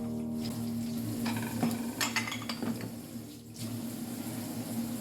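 Kitchen cookware and utensils clinking and scraping, with a few sharp clinks about one, two and two and a half seconds in, over a steady low hum.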